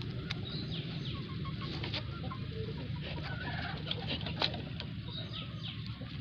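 Chickens clucking in the background, with short high calls that fall in pitch, over a steady low rumble. Scattered small clicks, and one sharper click about four and a half seconds in.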